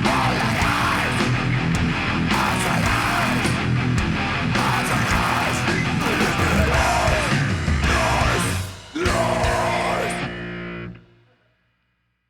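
Live rock band of drums, electric guitar and bass playing the last bars of a fast song. Just before nine seconds in the band stops for a split second, then hits a final chord that rings out and dies away to silence.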